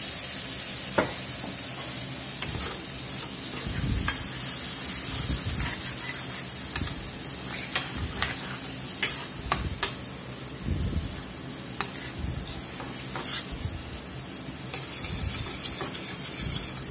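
Blackened ground pork sizzling in a stainless-steel skillet as a splash of beef broth and Worcestershire sauce boils off to deglaze it. The sizzle slowly eases while a metal spoon stirs and scrapes the pan bottom with scattered clicks, coming quicker near the end.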